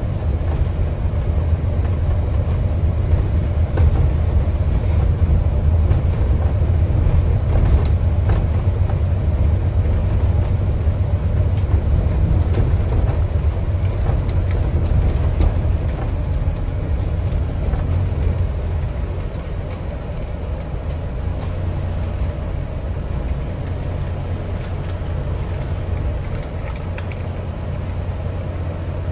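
Inside a moving Alexander Dennis Enviro400 MMC hybrid double-decker bus: a steady low drivetrain and road rumble with occasional faint clicks, easing a little about two-thirds of the way through.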